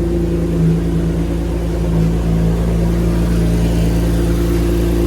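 A 2018 Toyota Camry's 3.5 L V6, fitted with an AEM cold air intake, idling steadily at an even pitch.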